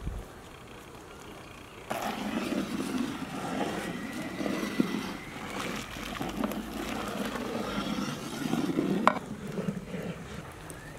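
Large pot of sambar bubbling on the boil over a wood fire after the blended toor dal goes in. The bubbling comes in about two seconds in and fades near the end, with one sharp click about nine seconds in.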